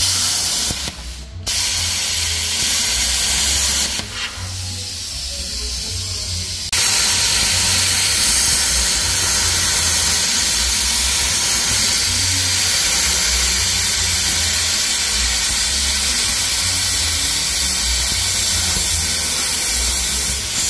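Plasma cutter hissing as it cuts through the original steel suspension brackets on a Jeep JL frame. A brief break about a second in and a quieter stretch from about four seconds in, then a steady loud hiss from about seven seconds in.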